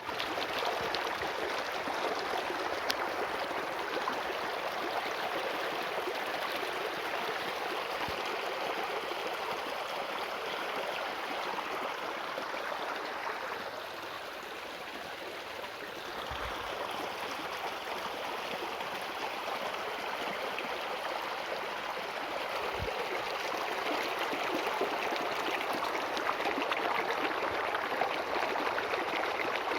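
Water running in a steady rushing flow, like a stream, dipping slightly softer for a moment about halfway through.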